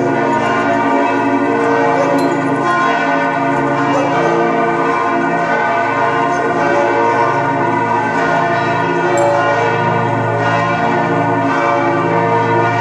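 Church bells ringing in a loud, continuous peal, their strokes overlapping into one unbroken wash of layered tones.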